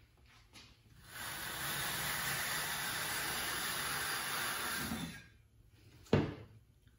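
An Amcraft blue V-groove tool's blades sliding through 1½-inch fiberglass duct board, pushed along a layout square: a steady scraping hiss lasting about four seconds that stops about five seconds in. A single knock follows near the end.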